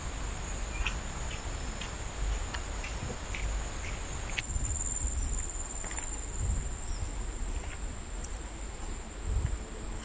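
Rainforest insects keep up a steady high-pitched drone, with scattered faint ticks and soft low thumps from footsteps on a dirt trail.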